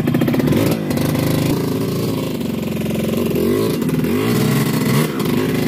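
Enduro dirt-bike engine running under throttle, revving up and down several times as it climbs the trail.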